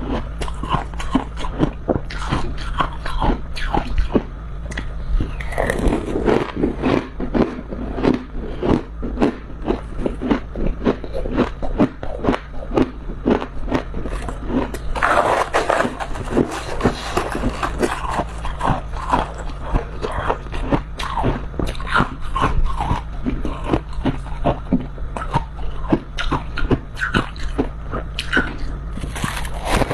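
Close-up biting and chewing of a crunchy chunk of freezer frost: a dense run of crisp crunches, several a second.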